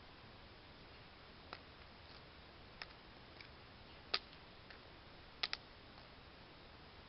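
Scattered sharp clicks and taps of small hard pieces of a vaping pipe landing on and being handled on concrete steps, the loudest about four seconds in and a quick double tap about a second later.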